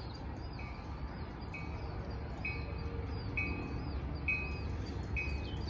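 A short, high, chime-like note repeating about once a second, with bird chirps over a steady low rumble.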